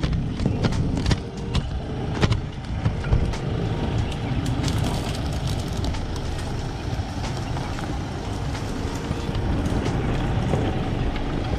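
Mahindra Thar 4x4s crawling over a rocky dirt track, engines running at low revs as the lead one drives up and past close by. A few sharp cracks in the first three seconds fit stones crunching under the tyres.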